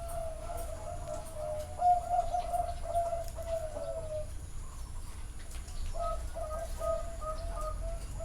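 Zebra doves cooing: runs of short, clipped coo notes, more than one bird overlapping, breaking off about four seconds in and starting again about a second and a half later.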